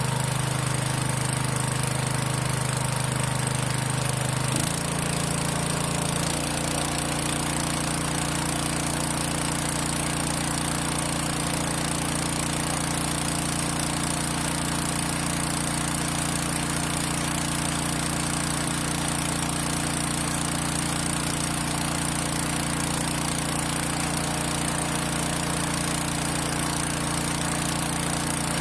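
Diesel engine running steadily during an injector nozzle test at part throttle. Its speed shifts twice, about four and a half and six seconds in, then holds steady.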